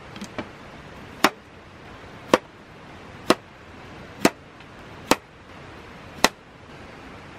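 Kitchen knife chopping through a zucchini onto a plastic cutting board: six sharp chops, about one a second. Two light knocks come first, as the board is set down.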